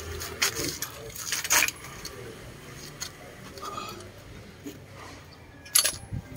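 Metal hand tools and sockets clinking and clicking in scattered sharp strikes as sockets are handled on their rail beside a car's front hub, the loudest click near the end.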